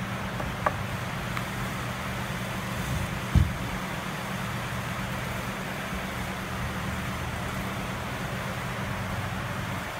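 Steady low background hum, with a light click about a second in and a dull knock at about three and a half seconds as the wooden pallet-wood toolbox is handled.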